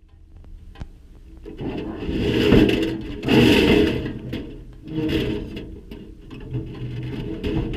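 Scraping and rubbing of scrap being shifted and slid around, in a few swells of a second or two each, the loudest about two to four seconds in.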